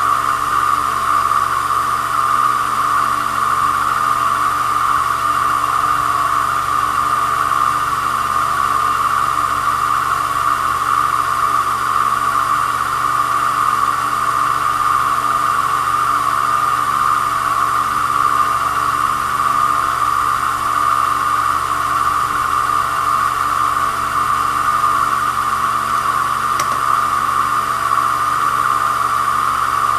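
Small lathe running steadily, spinning a pool cue shaft, while a hand-held cutter trims the leather cue tip. The sound holds steady and unchanging.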